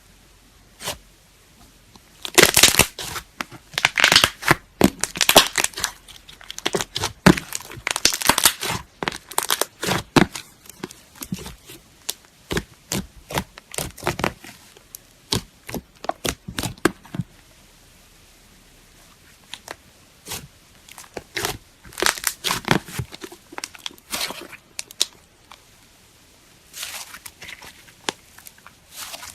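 Slime being squeezed and pressed by hand, giving irregular bursts of crackling and popping clicks, with a quieter stretch about two-thirds of the way through.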